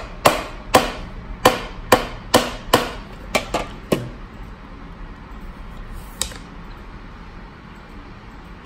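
The corner of a box striking a tempered-glass screen protector lying on a hard floor, hard and repeatedly: about nine sharp knocks in the first four seconds, then one more about six seconds in. The glass does not break.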